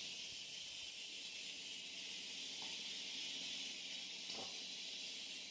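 Steady hiss from a commercial kitchen's gas stove and wok, with a couple of faint clinks from a ladle.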